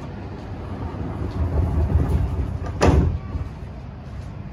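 Sliding passenger doors of a Metro X'Trapolis train closing: a rumbling slide that builds, then a loud thud as the doors meet about three seconds in.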